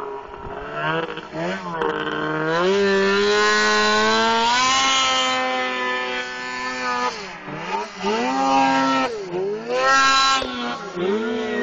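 Two-stroke mountain snowmobile engine revving: it climbs over the first couple of seconds and holds high revs, then is throttled off and back on about three times as the sled carves through deep powder.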